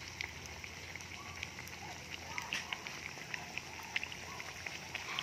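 Hot oil sizzling steadily with many small scattered pops as batter-coated banana slices deep-fry.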